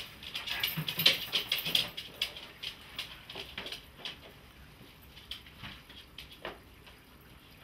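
Footsteps and a dog's claws pattering on a hard tiled floor, with clothing rustle. The clicks are thickest in the first two to three seconds and become sparser as they move away.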